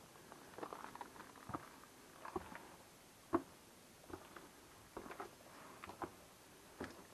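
Slow, irregular footsteps crunching on loose stone and rubble inside a narrow rock passage. One step, a little past three seconds in, is sharper and louder than the rest.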